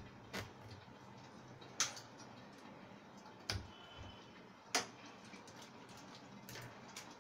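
Thick curry gravy simmering in a covered kadai, popping and spattering against the glass lid in irregular sharp pops, four of them loud, over a faint steady hum.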